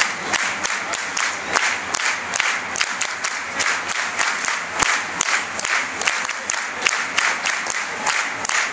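Large crowd of football supporters in a stadium stand clapping and cheering, with many sharp claps close by.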